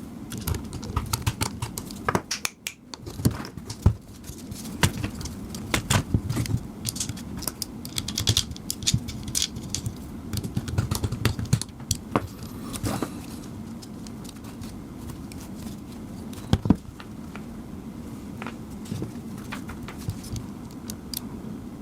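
Irregular metallic clicks, taps and rattles of screws and metal PC case parts being handled while a 3.5-inch hard drive is screwed into place, busiest in the first two-thirds, with one sharp knock about three-quarters through.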